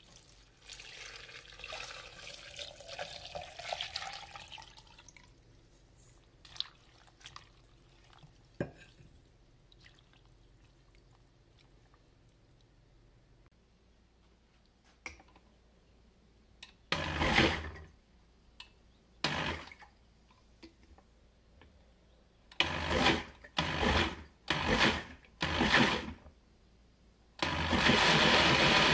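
Water poured from a metal bowl into a glass blender jar packed with torn paper scraps, its pitch rising as the jar fills. Later a stand blender is pulsed in several short bursts, then run steadily near the end, pulping the soaked paper.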